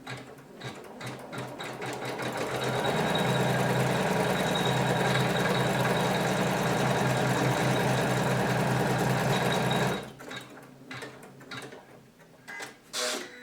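Janome 500E embroidery machine stitching: it starts with slow separate strokes, speeds up to a steady, even run and stops abruptly near the end. It runs smoothly, without the intermittent knock it was repaired for.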